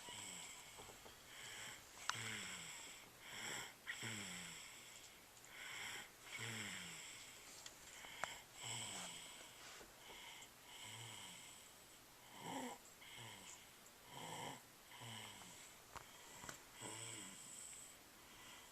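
Soft snoring, about one short snore a second, each one dropping in pitch.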